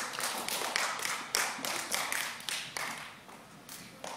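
An audience applauding with quick, irregular hand claps that thin out and die away about three seconds in.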